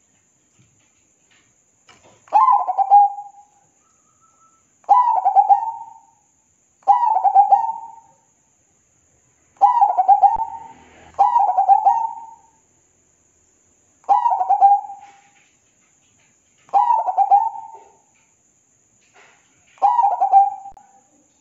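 Zebra dove (perkutut) singing its cooing song. Eight short phrases, each a quick run of notes lasting about a second, repeat every two to three seconds, starting about two seconds in.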